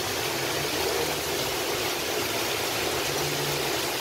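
Heavy rain pouring down steadily, an even, unbroken hiss.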